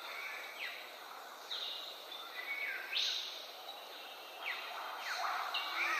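Birds calling in the rainforest, a run of short, sharp calls that sweep steeply up or down in pitch, over a steady background hiss.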